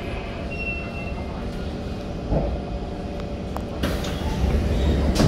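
SMRT C151 metro train fitted with PMSM traction motors slowing to a stop at a platform, heard from inside the car as a steady low rumble and hum. Near the end comes a louder rush of noise as the train halts and its sliding doors begin to open.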